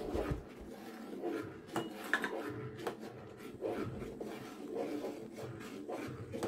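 A spoon stirring a pot of kheer thickened with custard powder, scraping along the bottom in soft, irregular strokes with a few light knocks against the pot.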